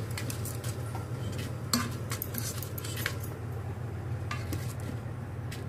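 Plastic rice paddle stirring and scraping raw rice grains around the metal inner pot of an electric multi-cooker, toasting the rice in hot ghee on the sauté setting. The scrapes and clicks come thick for about three seconds, then thin out, over a low steady hum.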